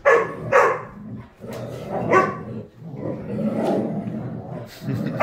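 Several huskies barking and growling as they wrestle: two sharp barks right at the start, another about two seconds in, then a longer stretch of low, continuous growling, and a last bark at the end.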